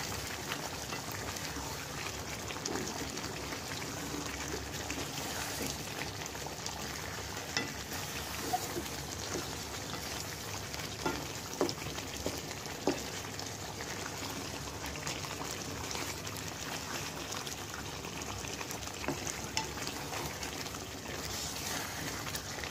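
Chicken pieces simmering in a gravy in a pot while a wooden spoon stirs them: a steady bubbling hiss, with a few sharp knocks of the spoon against the pot near the middle.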